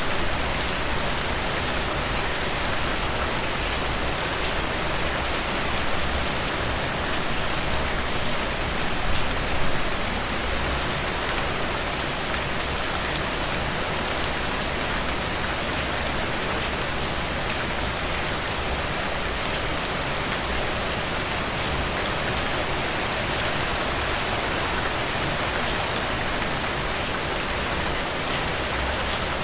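Steady rain falling on a surface, a dense even hiss with many fine drop ticks, swelling slightly for a moment about a third of the way in.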